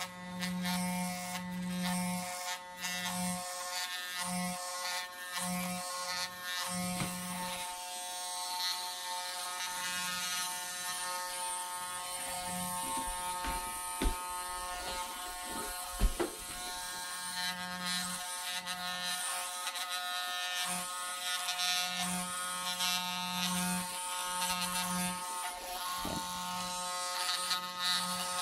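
Flowbee vacuum haircutter running: its electric clipper buzzes over the steady whine of the canister vacuum it is hooked to. A lower hum cuts in and out many times, and there are two sharp knocks near the middle.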